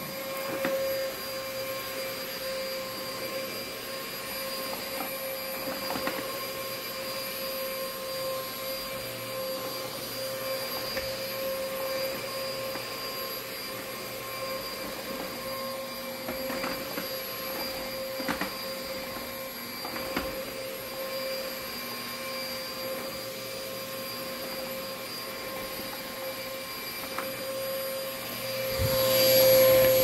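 Vacuum cleaner running steadily, a high motor whine over rushing airflow, with a few faint clicks; it swells louder for a moment near the end.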